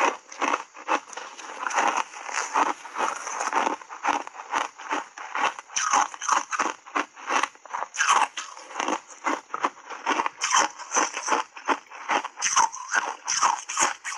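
Shaved ice coated in matcha powder crunching between the teeth as it is chewed, a fast, uneven run of crisp crunches picked up close on a clip-on microphone.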